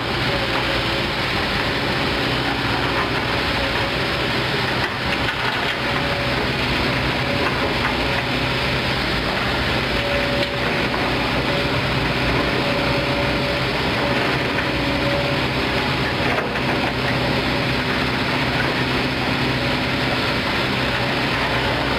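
Kobelco SK200 Geospec hydraulic excavator's diesel engine running steadily as the machine works a soil pile, with a higher-pitched tone that comes and goes over the engine note.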